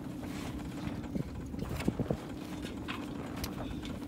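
A few sharp knocks and clicks of the jib's hardware as the sail is worked up the forestay by hand, over the steady low hum of the boat's outboard motor.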